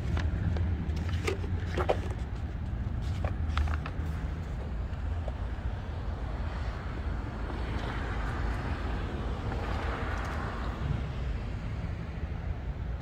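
A car passing on the road, swelling and fading about eight to ten seconds in, over a steady low rumble of wind on the microphone. A few sharp clicks come in the first four seconds.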